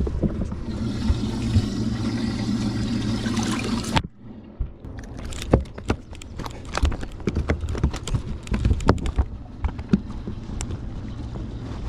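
Water rushing and gurgling over a steady low hum, which cuts off suddenly about four seconds in. After that come irregular knocks and clatter of handling aboard a bass boat.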